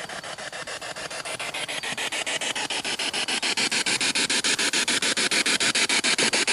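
Spirit box sweeping through radio channels and played through a small portable speaker: a hiss of static chopped into rapid, even pulses about nine times a second, growing louder over the first few seconds.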